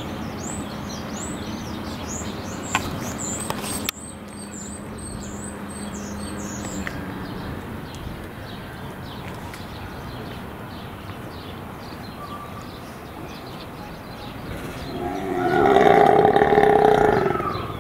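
Small birds chirping rapidly and repeatedly for the first several seconds. Near the end comes a loud, drawn-out animal call of about two and a half seconds that swells and fades.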